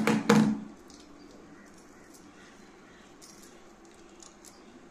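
A short vocal sound from a woman at the very start, then faint scattered clicks and light metallic ticks as small metal jhumka earrings are handled.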